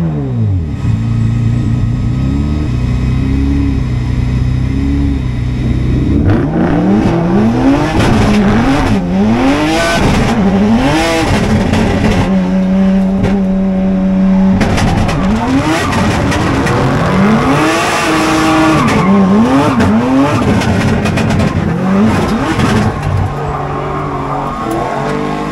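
Drift car's engine heard from inside its stripped, caged cabin, revving up and down over and over as the car slides, with tyre squeal and rushing noise. For the first few seconds the engine runs at a lower, steadier note. Near the middle it holds one pitch for about two seconds.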